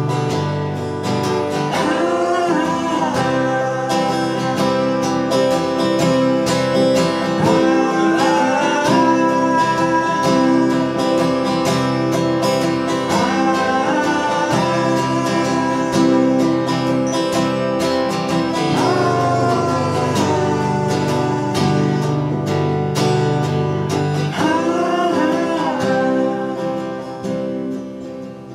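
Live duo of acoustic guitar and semi-hollow electric guitar strumming together, with a man singing in phrases every few seconds over the chords.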